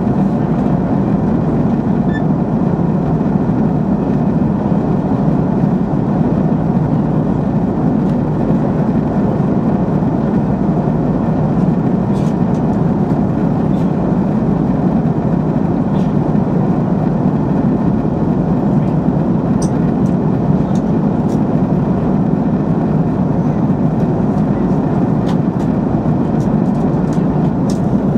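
Jet airliner cabin noise: engines and airflow as a steady, even rumble, with a few faint clicks in the second half.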